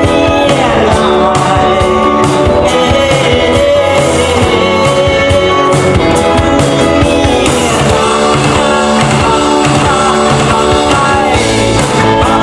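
Live rock band playing: a male lead vocal over electric guitars, bass guitar and drums, loud and continuous.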